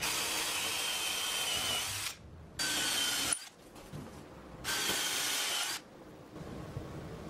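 Cordless drill running in three bursts, the first about two seconds long and the next two shorter, each with a steady whine. Its bit is boring into a sapele door frame, drilling holes for through dowels to pin the tenons.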